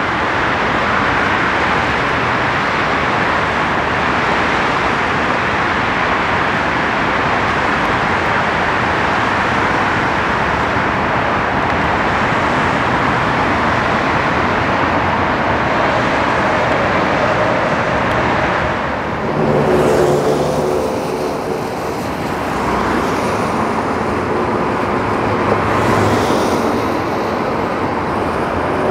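Steady freeway traffic: a constant rush of tyres and engines. About two-thirds of the way through, a vehicle's engine hum with a steady tone comes in, and a couple of vehicles pass close by.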